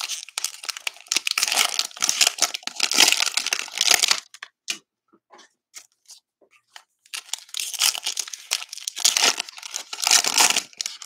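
Plastic-foil trading-card pack wrappers crinkling and tearing as the packs are pulled apart and opened, in two stretches with a near-quiet gap of about three seconds between them.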